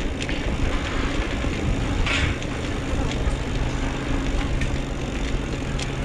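Steady low rumble and rushing noise of wind and rolling tyres on a mountain biker's camera microphone while riding, with a brief louder gust about two seconds in.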